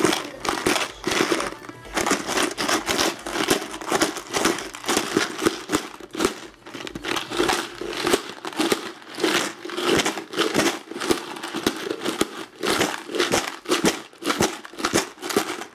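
Paper crinkling and rustling in quick, irregular bursts as presents are unwrapped and taken out of boxes.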